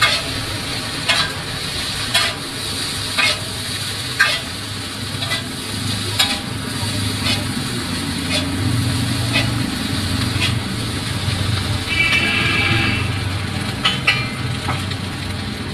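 Noodles stir-frying on a large flat iron griddle, sizzling steadily, while a metal spatula strikes and scrapes the griddle about once a second.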